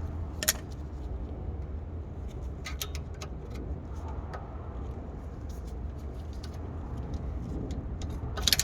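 Scattered light clicks and taps of the parking brake cable and bracket being handled and fitted at a rear brake caliper, over a steady low rumble. A sharper cluster of clicks comes near the end.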